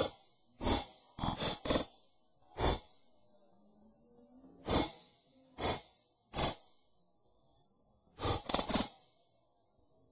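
High-voltage zaps from 5.6 kV DC copper bars as wasps bridge them and are popped: about ten short, sharp pops, several of them in quick clusters of two or three.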